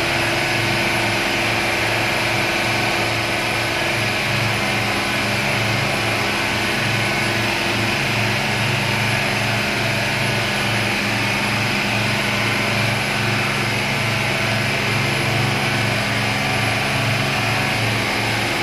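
Speedboat engine running steadily at speed, with the rush of wind and churning water as the hull moves.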